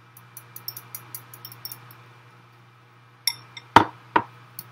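A metal utensil clinking quickly against a glass mixing bowl as the wet ingredients are whisked. Near the end come two louder knocks in quick succession.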